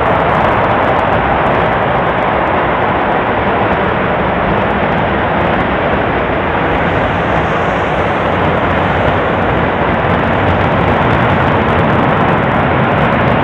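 SpaceX Merlin 1D Vacuum rocket engine firing on a test stand: a steady, loud, unbroken rumbling rush of exhaust noise with no pauses.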